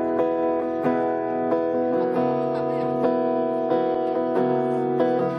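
Acoustic guitars strumming chords in an unplugged arrangement with no effects, a strum about every two-thirds of a second; the chord changes about two seconds in and again past four seconds.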